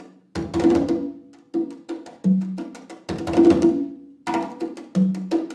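Congas played by hand in a fast solo: rapid runs of slaps and open tones in repeating phrases with short breaks between them. A deeper ringing open tone sounds on the low drum twice, a little after two seconds in and again about five seconds in.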